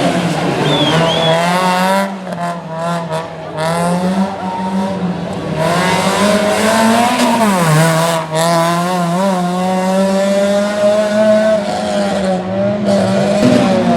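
Rally car engine revving hard through the gears, its pitch climbing and dropping again and again as the driver shifts and lifts.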